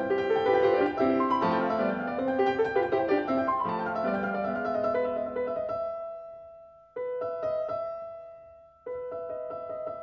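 Background piano music: a busy run of notes that fades out about six seconds in, then a repeated-note figure that comes in suddenly, dies away, and comes in again near the end.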